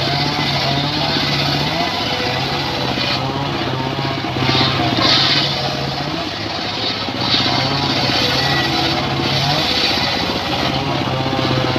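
Circular saw running steadily, its blade cutting wood in repeated passes, each cut adding a hiss over the steady motor note.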